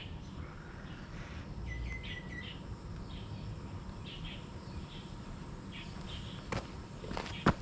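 Birds chirping in short, scattered calls, with one brief steady trill about two seconds in, over a low background rumble; two sharp clicks sound near the end.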